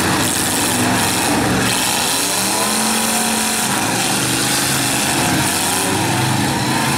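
Several V8 demolition-derby car engines running hard, revving up and down as the cars manoeuvre.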